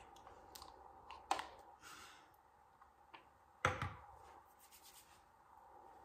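Quiet handling sounds: a few soft clicks and taps as small objects are handled. The sharpest knocks come about a second in and again near four seconds in.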